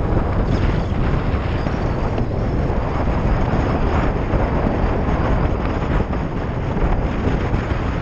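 Wind rushing over the microphone of a motorcycle-mounted camera at road speed, a loud, steady rumbling noise that buries the bike's engine and tyre sound.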